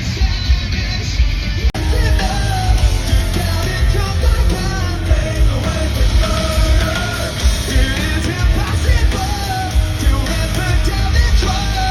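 Live rock band playing loudly with a vocalist singing and shouting over heavy drums and bass, with an abrupt cut to another part of the music about two seconds in.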